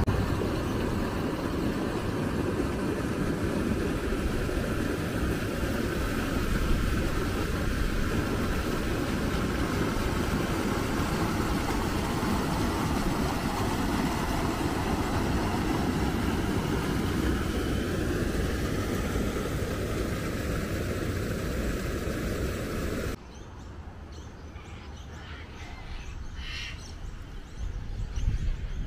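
Flowing floodwater rushing steadily and loudly. It cuts off suddenly near the end to a quieter bush background with a few bird chirps.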